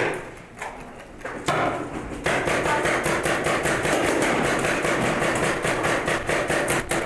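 Paintball markers firing, a few scattered pops and then, about two seconds in, a fast, continuous run of shots, several a second.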